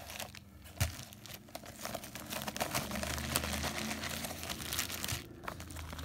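Plastic bubble mailer and plastic bags crinkling and rustling as they are handled and the contents are pulled out, with a sharp click about a second in.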